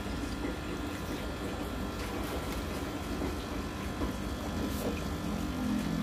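Steady hum and bubbling of running aquarium equipment: an air pump feeding an air stone, and a filter. A lower hum grows stronger near the end.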